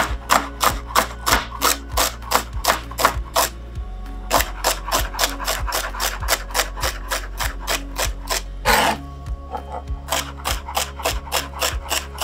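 Chef's knife chopping celery stalks on a cutting board: a steady run of crisp cuts, about three or four a second, with a short pause about three and a half seconds in and one longer, louder stroke near the end.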